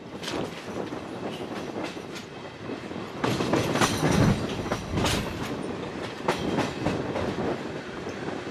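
Wheels of a regional passenger train clattering over rail joints and switches, a run of irregular knocks over a steady rumble, heard from an open carriage window. The clatter grows loudest from about three seconds in.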